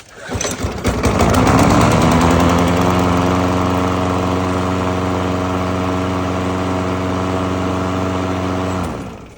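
Craftsman 6.75 horsepower push lawn mower's small engine starting up and catching within about a second. It then runs at a steady speed for several seconds and is shut off near the end, winding down in pitch.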